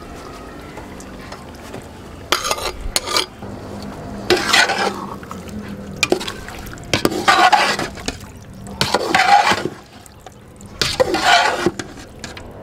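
A long metal slotted spoon stirring and turning wet marinated mutton in a large aluminium pot of masala, in about five separate strokes roughly two seconds apart.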